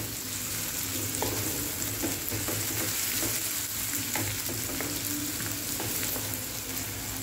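Chopped onion sizzling in hot oil in a nonstick kadhai, stirred with a wooden spatula that scrapes and taps lightly against the pan.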